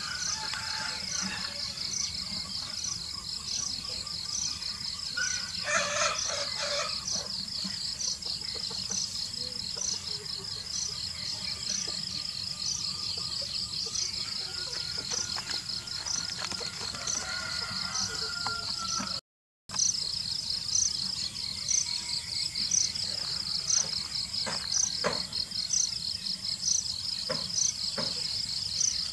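Steady chorus of insects chirping: a dense, high trill that pulses regularly about once a second, with a few faint bird chirps. The sound drops out for a moment about two-thirds of the way through.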